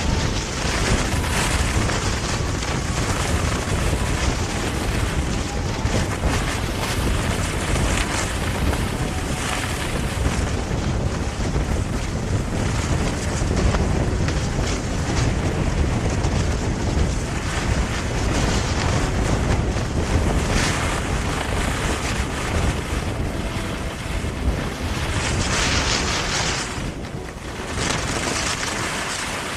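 Wind buffeting the microphone: a steady, loud rushing rumble, with a brief hissier surge near the end.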